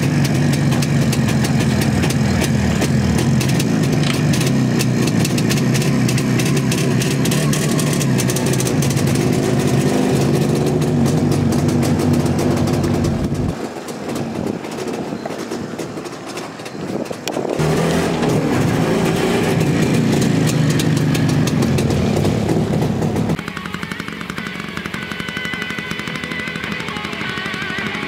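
CZ 472.6 motorcycle's 350 cc two-stroke twin engine running, dropping in level for a few seconds about halfway and coming back. Near the end it cuts off suddenly and music with electric guitar takes over.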